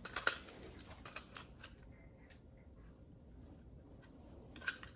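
Small clicks and taps from handling an airsoft pistol and its removed magazine: a sharp click near the start, a few faint taps, and another click near the end.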